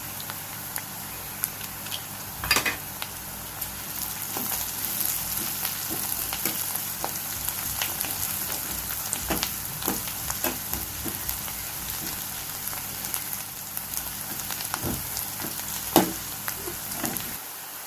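Onions and dried red chillies sizzling in hot oil in a kadai, with steady frying hiss and a spatula clicking and scraping against the pan as they are stirred. A couple of louder knocks of the spatula come about two and a half seconds in and near the end.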